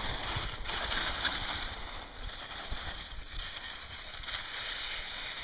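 Skis sliding and scraping over soft spring snow on a downhill run, mixed with wind rumbling on the microphone.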